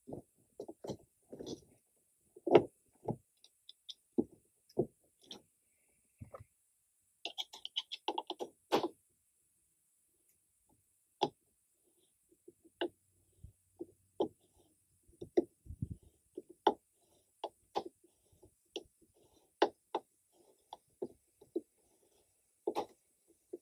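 Scattered knocks and clicks of a long-shank driver and bolt against the overhead rack bracket and grab handle as a bolt is fought into a tight mounting hole, with a quick run of clicks about eight seconds in.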